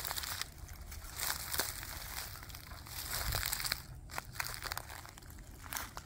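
Footsteps in sneakers crunching and crackling through dry fallen leaves, twigs and acorns, with short pauses between steps.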